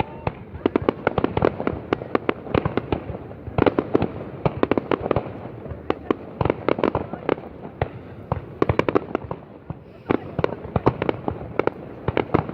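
Fireworks going off in rapid, overlapping bangs and crackles, coming in dense clusters with short lulls between them.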